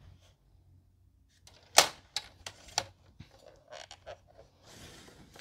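Card stock being handled and creased on a plastic scoring board: a few sharp clicks and taps about two seconds in, smaller ticks after, then a brief rubbing scrape near the end as the diagonal fold is pressed down.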